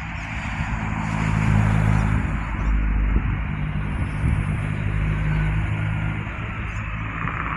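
4000 class electric multiple-unit train pulling into a station: a steady low hum under the rush and rumble of the wheels on the rails, loudest about two seconds in, then easing off.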